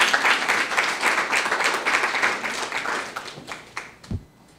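Audience applauding, fading out after about three and a half seconds, followed by a single low thump near the end.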